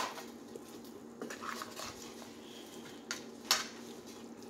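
Metal spoon stirring a pot of stew, knocking and scraping against the pot with a few sharp clinks, the loudest about three and a half seconds in. A faint steady hum runs underneath.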